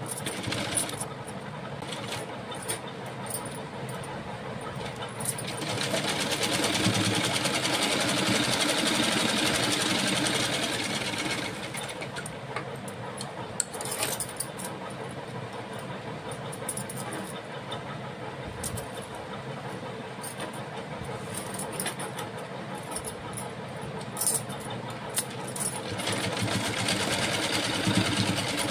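Domestic sewing machine stitching through fabric in two runs: one from about six seconds in lasting some five seconds, another starting near the end. Between them, small handling clicks over a steady background noise.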